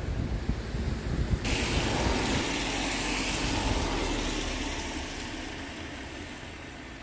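A loud hiss from the 59 class steam locomotive 5917 starts suddenly about a second and a half in and slowly dies away, over a low rumble.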